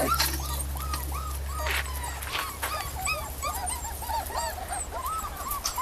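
Several Portuguese water dog puppies whimpering, a rapid, overlapping string of short, high whines.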